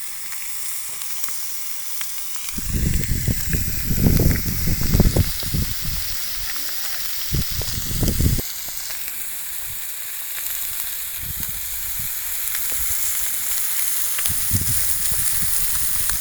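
Chicken sizzling and frying on a hot marble stone: a steady hiss with scattered crackles. Heavy low rumbling comes in about three seconds in and again around eight seconds.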